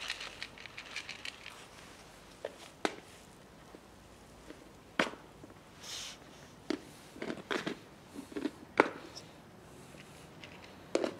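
A cat chewing food, quick crunchy crackles in the first second or so, then a few scattered sharp clicks and knocks.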